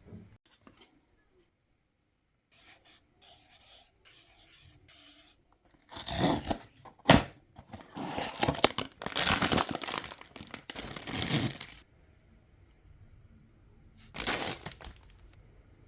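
Blind-box packaging being torn open and crinkled: faint rustling at first, then a run of loud tearing with a sharp snap about seven seconds in, and one more short tear near the end.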